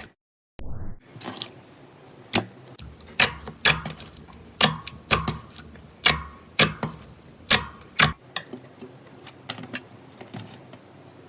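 After a brief dead silence, slime is worked by hand, giving a run of sharp popping clicks about twice a second, then fainter, sparser crackles for the last few seconds.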